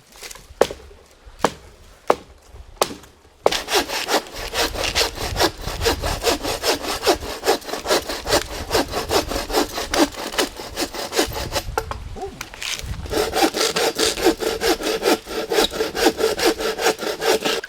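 A few sharp knocks on wood, then a hand saw cutting steadily through a dry dead tree trunk in rapid back-and-forth strokes. The sawing stops briefly about twelve seconds in, then picks up again.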